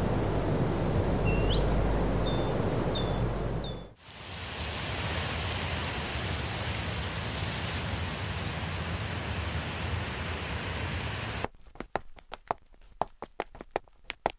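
Edited outdoor sound collage: steady low outdoor rumble with a few short bird chirps, cut off abruptly at about four seconds by an even, steady hiss, which gives way near the end to a run of sharp, irregular taps.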